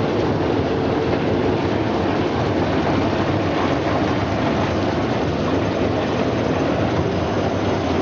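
Brush-roller potato washing machine running: a steady, dense mechanical noise that holds at an even level.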